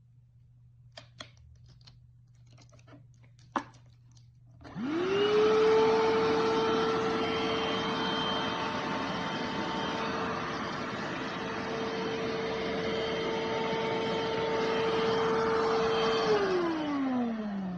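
FUOAYOC handheld cordless vacuum cleaner: a few light clicks, then the motor switches on about five seconds in and spins up quickly to a steady whine with rushing air. Near the end it is switched off and winds down with a falling pitch.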